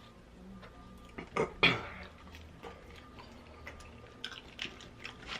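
Close-miked eating sounds: chewing and wet mouth clicks, with two louder smacks about a second and a half in.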